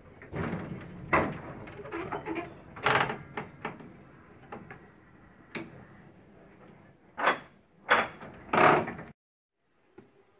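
A run of clunks and rattles from the driver's controls of a vintage tram as its controller and brake handles are worked, with several sharp knocks late on; the sound cuts off abruptly near the end.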